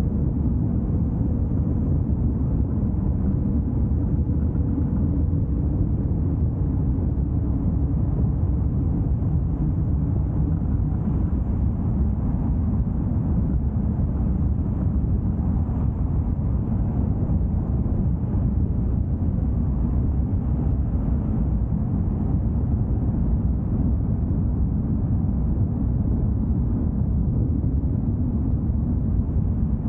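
Car driving at a steady pace: an even low rumble of engine and road noise.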